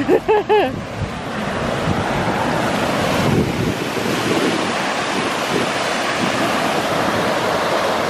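Steady rush of Bonanza Falls' rapids pouring over the rock ledges, with wind rumbling on the microphone through the first few seconds.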